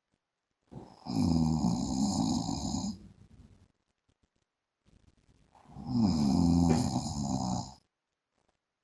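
A man snoring in his sleep: two long snores of about two seconds each, some four seconds apart.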